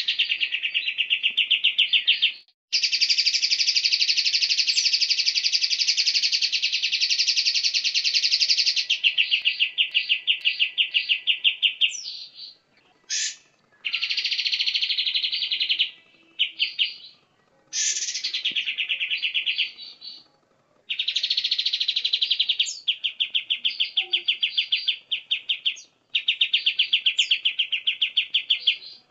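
Cage-bird song from a masteran recording of cucak cungkok, cucak kinoi and kapas tembak: very fast, high-pitched rattling trills in about eight bursts, most lasting several seconds, with short breaks between them.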